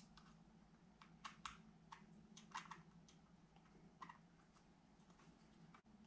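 Faint, irregular small clicks and ticks of a precision screwdriver turning the tiny body screws into a Daiwa Strikeforce 2500B spinning reel, with the parts being handled.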